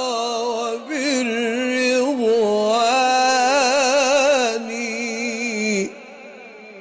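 A male voice chanting an Islamic ibtihal, holding a long ornamented closing note with vibrato. It breaks off about six seconds in, leaving a faint lingering tail.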